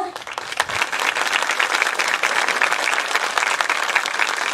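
Theatre audience applauding, many hands clapping at once, starting just as the performers' sung closing line ends.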